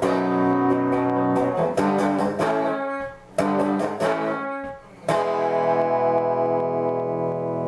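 Background music: guitar chords struck and left ringing, a new chord every second or so, with short breaks about three and five seconds in.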